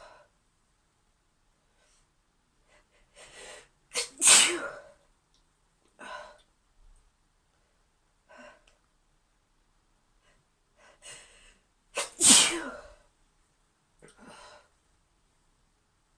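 A woman sneezing twice, once about four seconds in and again about twelve seconds in, each loud sneeze preceded by a few short breaths in, with quieter breaths between.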